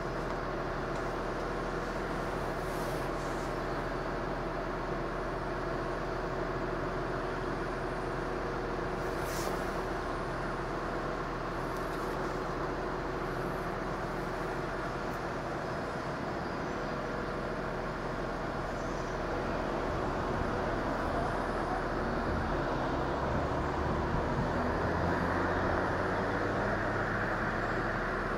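A large diesel vehicle's engine runs steadily as it slowly approaches, growing louder and deeper over the last several seconds. There is a short hiss about ten seconds in.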